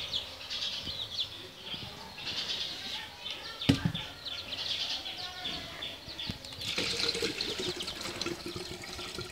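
Coconut water pouring from an opened green coconut into a plastic cup, starting about two-thirds in, with small birds chirping throughout. One sharp knock a little before halfway.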